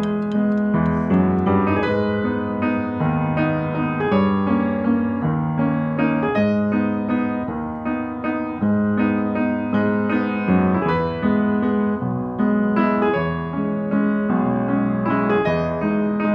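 Background piano music: a steady stream of struck notes over low chords that change about once a second.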